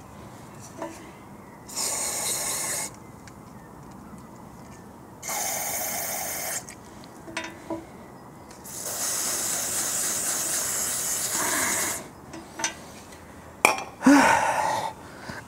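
Aerosol spray can fired in three hissing bursts, each a second or more long, the last and longest starting about nine seconds in. Near the end there is a sharp knock and a short strained grunt.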